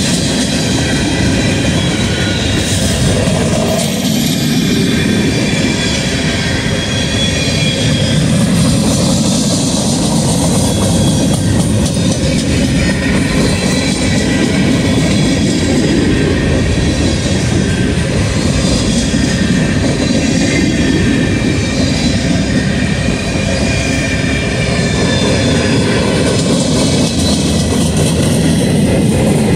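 A mixed freight train rolling past at close range: a steady rumble of steel wheels on the rails, with thin, high squealing tones from the wheels running through it.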